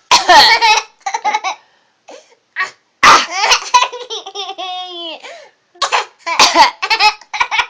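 A fit of short, sharp coughs mixed with high-pitched laughter, with a longer drawn-out laugh in the middle.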